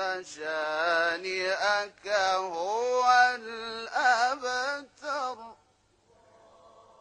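A man reciting the Quran in an ornamented, melodic chant, his voice gliding and wavering in pitch through long phrases. The phrase ends about five and a half seconds in, leaving only a faint steady sound.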